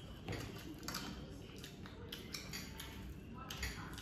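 Close-up eating sounds: chewing, lip smacks and fingers squishing rice on paper plates, coming as many short irregular clicks, with a louder clack about three and a half seconds in.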